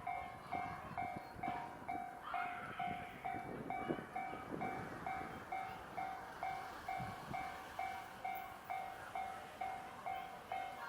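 Japanese railway level-crossing alarm ringing: an electronic two-pitched ding repeating about twice a second. Under it a train is running past on the line.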